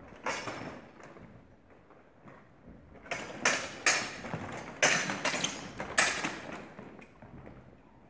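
Steel longswords clashing and striking plate armour during sparring: one sharp metallic hit just after the start, then a quick run of about five louder clashes from about three to six seconds in, each ringing briefly.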